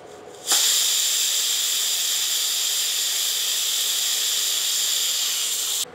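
Pressure cooker's whistle venting steam in a loud, steady hiss that starts about half a second in and cuts off suddenly near the end. It is the cooker's fourth whistle, the sign that the mutton has had its full cooking time under pressure.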